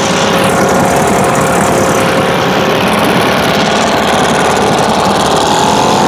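British Seagull Forty Plus outboard motor, a single-cylinder two-stroke, running steadily while clamped in a bin of water as a test tank. It runs on old fuel after starting on the second pull.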